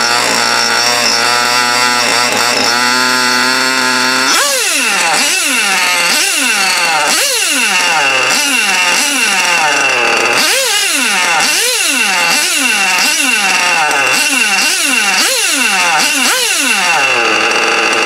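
Picco Otto .21 seven-port nitro glow engine in a 1/8-scale on-road RC car. It runs with a steady drone for about four seconds, then is blipped on the throttle more than a dozen times, each rev rising and falling sharply about once a second, with a high whine over it. It settles back to a steady idle near the end.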